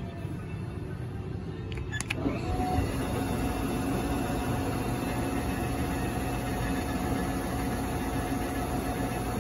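Haas VF-2 CNC vertical machining center running: a few sharp clicks about two seconds in, then its spindle comes up with a steady whine over a low hum that holds.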